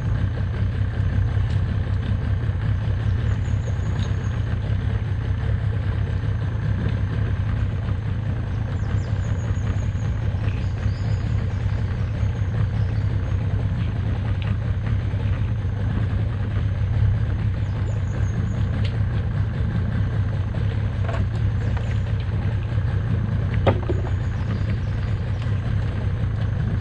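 Small boat's outboard motor idling steadily, a low even hum, with one sharp knock near the end.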